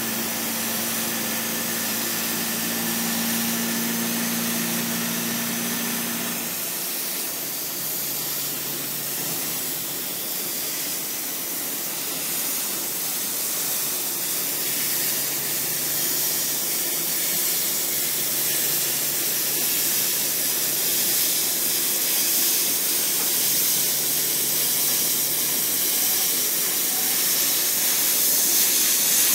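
Laser cutting machine cutting a sheet-metal grill: a steady hiss from the cutting head, with a low machine hum that drops to a lower, fainter hum about six seconds in.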